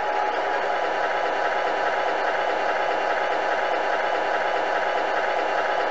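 Tamiya MFC-01 sound unit playing a simulated truck diesel engine idling steadily through its small speaker, just after its engine-start sound.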